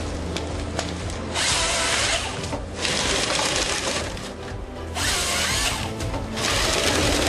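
Lako harvesting head's chain saw cutting through a log twice, each cut lasting just over a second, over the steady low running of the harvester's engine.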